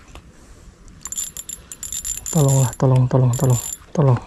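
Small spinning reel (Mini 100) ratcheting and clicking as a hooked fish is played on light line. About halfway through come four short, falling voiced exclamations.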